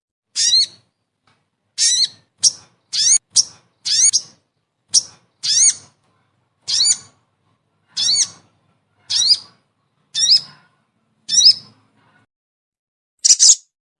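Lure-call recording of the sogon bird: a series of short, high, rising whistled notes, roughly one a second with silence between. Near the end come two denser, harsher calls.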